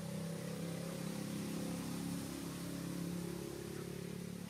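A steady low motor drone whose pitch drifts slowly up and down.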